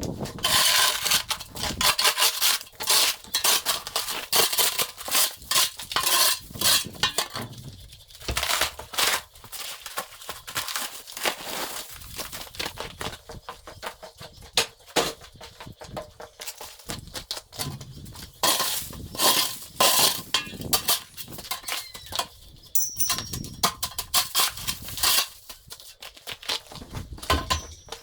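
Irregular clatter of clinks and knocks, hard parts being moved and set down during a build, coming in clusters with short lulls between.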